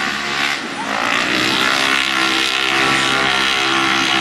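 Side-by-side UTV engines running hard as they race, the engine note dipping briefly and climbing again a little under a second in.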